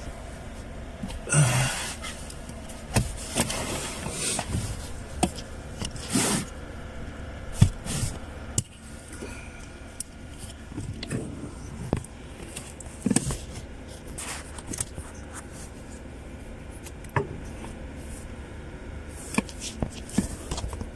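Scattered light knocks, scrapes and rustles of handling in a car's footwell, with a couple of louder rustling scrapes early on and sparse taps after.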